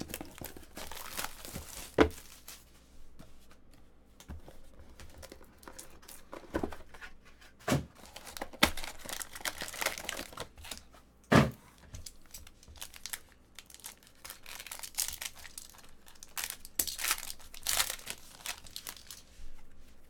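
Plastic and foil wrappers of Vertex football card packs crinkling and tearing as the hobby box is opened and the packs ripped. Two sharp snaps stand out, about two seconds in and about halfway through.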